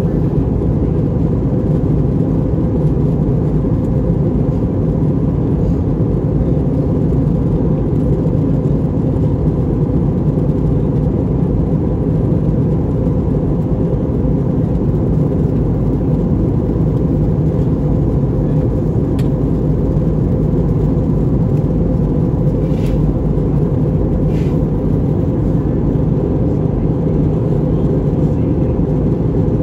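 Airbus A321 cabin noise in flight: a steady, loud drone of engines and airflow, heaviest in the low range, with a faint steady tone over it and a few faint clicks in the second half.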